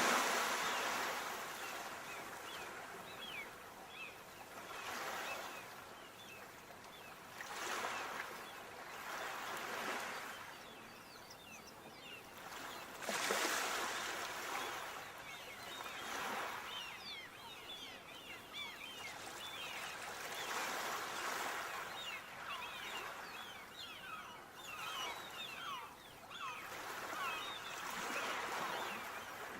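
Sea waves surging in every few seconds, with a steady fizzing and trickling of water between the surges. The biggest surges come at the start and about 13 seconds in.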